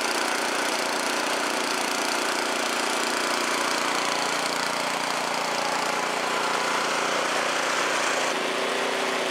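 Troy-Bilt Storm 2620 snowblower's single-cylinder four-stroke engine running steadily, with the headlight and heated handgrips drawing power.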